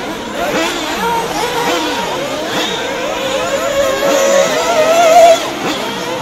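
Several nitro RC buggies' small two-stroke glow engines racing together, their overlapping whines constantly rising and falling as the cars accelerate and back off around the track. It is loudest about five seconds in.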